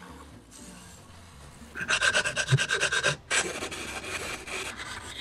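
Hand sanding a plywood edge with a sanding sleeve on a rod: quick rasping back-and-forth strokes of abrasive on wood, starting about two seconds in, pausing briefly, then carrying on. The first two seconds are quieter.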